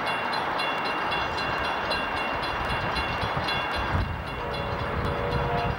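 Distant diesel locomotive air horn sounding a chord of several notes, starting about four and a half seconds in, over a steady rush of background noise.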